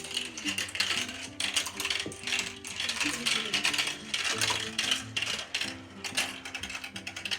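Marbles rolling and clattering along a marble run track, with rapid, irregular clicks as they knock against the track and each other.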